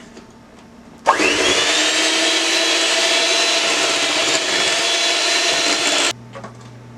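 Electric hand mixer switched on, spinning up quickly to a steady whine as its beaters run through cake batter, then switched off about five seconds later.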